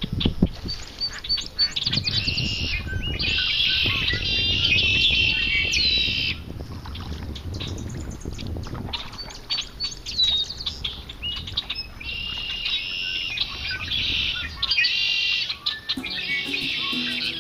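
Red-winged blackbirds singing, a chorus of repeated buzzy, trilled songs about a second long, one after another, over a low rumble that fades out near the end.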